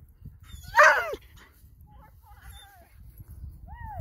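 A dog gives one loud yelping bark about a second in, falling in pitch, then a short high whine near the end.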